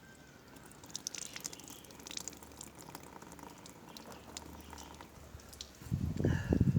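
Water dripping and trickling from leaks in a Lister D engine radiator that is filled with water for a leak test, in many small irregular drips. Near the end, louder rustling and knocks come in over the drips.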